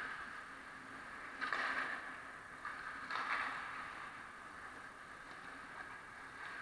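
Ice hockey skates scraping on the rink ice in three short bursts, at the start, after about a second and a half, and about three seconds in, over a steady arena hum.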